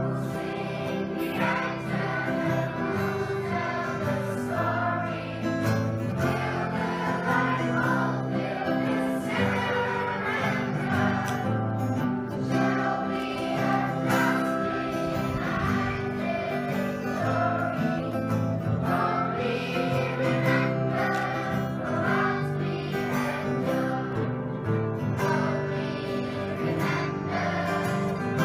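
Children's choir singing a slow song, accompanied by a group of acoustic guitars strummed together.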